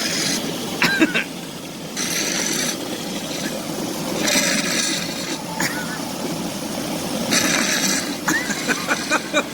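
Hot tub water churning and bubbling steadily, with louder gushes of bubbling at the start and about 2, 4 and 7 seconds in. A few short voice sounds come in around 1 second and near the end.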